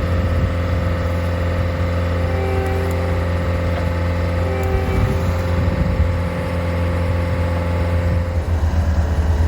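Bobcat skid steer's engine running steadily under work, with two brief higher-pitched tones over it early and mid-way.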